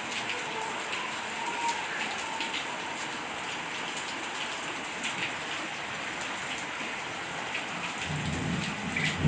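Steady rain falling, an even hiss with scattered drop ticks, and a low rumble coming in about a second before the end.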